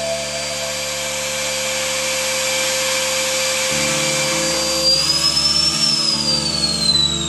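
Vacuum motor of a homemade vacuum-forming machine running steadily with a hiss and whine. About five seconds in its whine rises briefly and then slowly falls as the heated plastic sheet is sucked down tight over the seat mold.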